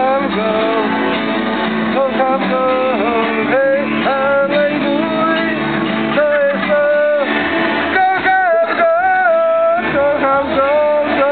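A song: a voice singing a wavering melody over strummed guitar accompaniment.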